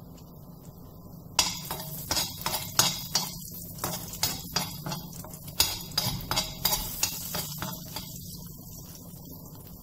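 A spoon scraping and clinking against a nonstick frying pan, stirring cashews and raisins frying in ghee. The strokes come quick and irregular from about a second and a half in and stop near the eighth second, over a low steady hum.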